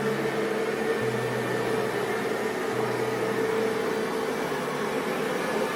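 Xiaomi Mi Robot Vacuum-Mop Essential running: a steady whirring hum of its fan and brush motors, with a low drone that shifts pitch a few times.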